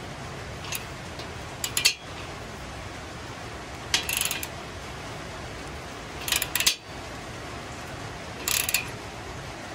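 Socket ratchet clicking in short runs about every two seconds, each run a back-stroke of the handle as the clamp on a diesel exhaust tip is tightened.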